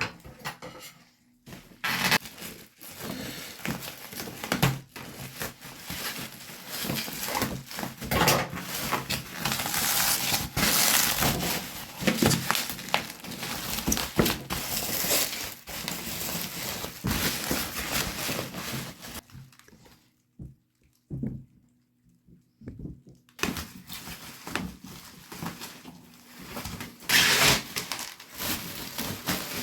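Toy packaging being handled and opened by hand: cardboard and plastic rustling and crinkling, with scattered knocks and clicks. It goes almost quiet for a few seconds about two-thirds of the way through, then the handling resumes.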